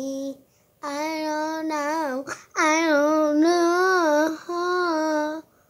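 A young girl singing long held notes that waver up and down, in three main phrases with short breaths between them.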